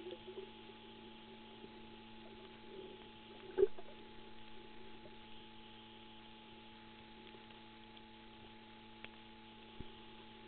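Muffled underwater sound from a submerged camera: a faint steady hum, with a sharp knock about three and a half seconds in and a couple of light clicks near the end.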